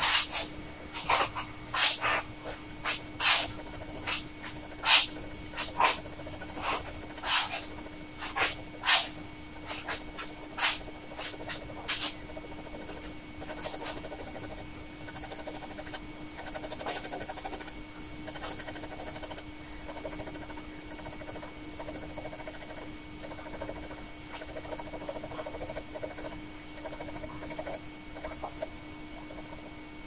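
Fountain pen nib scratching across paper in quick hatching strokes. For about the first twelve seconds the strokes are sharp and separate, one or two a second; after that the scratching is softer and more continuous.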